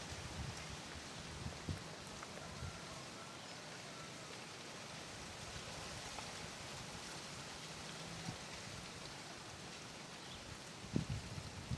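Steady rain falling, an even hiss with scattered small drop ticks, and a low knock near the end.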